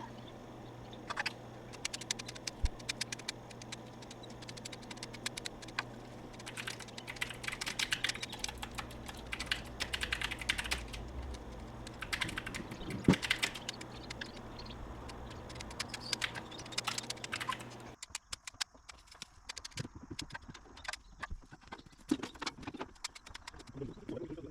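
Hand pruning shears snipping juniper twigs over and over, a quick irregular run of crisp clicks and snips.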